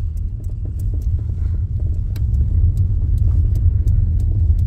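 Car driving, heard from inside the cabin: a steady low road and engine rumble with faint light ticks and rattles.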